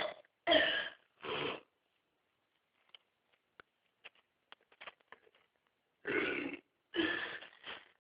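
A man's short throat and breath sounds between burps: two brief gusts in the first second and a half, a scatter of faint clicks in the middle, then three more short gusts near the end.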